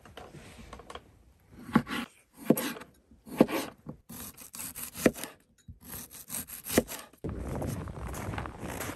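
A large kitchen knife slicing a red onion and pickles on a plastic cutting board: rasping cuts through the vegetable, each ending in a sharp knock of the blade on the board, about five cuts in all. About seven seconds in, this gives way to a steady rushing noise.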